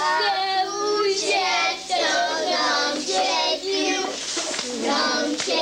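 Children singing a song in short phrases.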